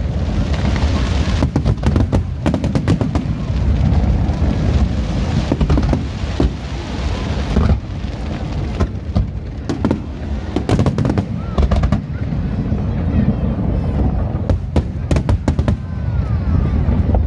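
Aerial fireworks bursting in quick succession, with many sharp bangs and crackling over a constant deep rumble.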